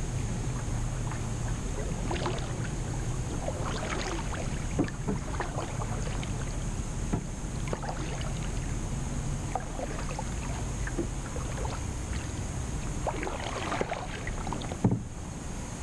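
Kayak paddling: water splashing and dripping from the paddle blades in irregular clusters of strokes, with water gurgling along the hull over a steady low rumble. Two sharp knocks, one about five seconds in and one near the end.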